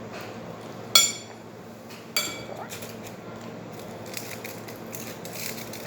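Metal cutlery clinking against a plate twice, about a second in and again a little over a second later, each strike ringing briefly.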